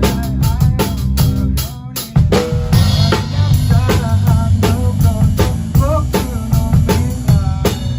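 Small live rock band (drum kit, bass, electric guitar and keyboard) playing an upbeat song, with the drum kit's kick, snare and rimshots loudest. The band briefly drops out just before two seconds in, then comes straight back in.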